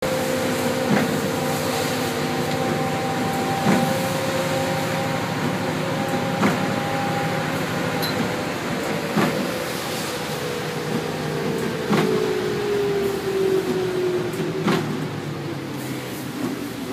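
Inside a city bus driving in the rain: steady engine and drivetrain whine over tyre and road noise, with a short knock about every two and a half to three seconds, in time with the windshield wipers. The whine slides down in pitch about twelve seconds in.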